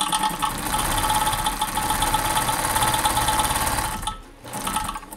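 Vintage Kenmore 148.1215 all-metal sewing machine stitching a zigzag forward, its motor and needle mechanism running with a steady rapid rhythm. It stops about four seconds in, then runs again briefly before the end.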